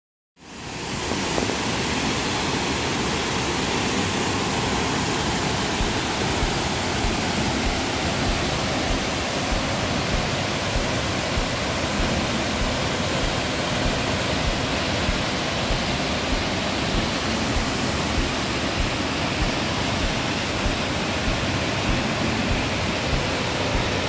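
Ramboda Falls, a tall waterfall in heavy flow, rushing steadily. It fades in about half a second in.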